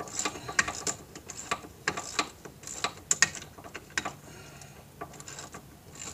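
Socket ratchet clicking in short, irregular runs as an 18 mm brake caliper bolt is worked loose and backed out.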